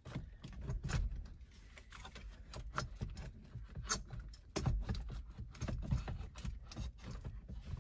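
Irregular clicks, knocks and plastic rattles of the 2015 Acura TLX's loosened factory stereo unit being handled and eased forward out of the dash, busiest a little past halfway.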